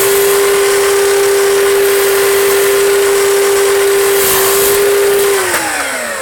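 Miter saw motor running with a steady high whine; about four seconds in the blade makes a brief cut through a strip of architrave bead trim. About five and a half seconds in the saw is switched off and the whine falls in pitch as the blade spins down.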